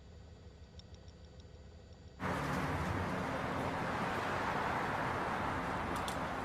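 A faint low hum, then about two seconds in a sudden cut to steady, loud highway traffic noise.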